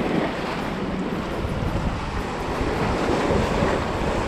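Sea waves washing and splashing among the rocks of a boulder jetty, with wind blowing on the microphone.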